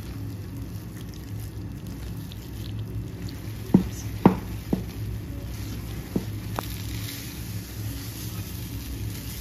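Chana dal paste being stirred and fried in ghee in a non-stick pan with a wooden spoon: soft squishing and a faint sizzle over a low steady hum, with about five sharp knocks of the spoon against the pan about four to seven seconds in.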